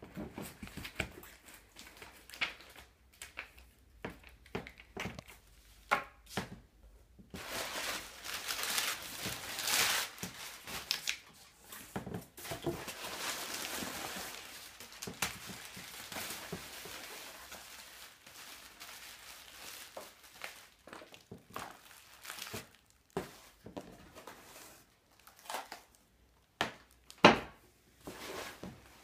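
Cardboard and plastic packing material rustling and crinkling as a shipping carton is unpacked by hand, densest in the first half. Near the end comes one sharp knock, the loudest sound.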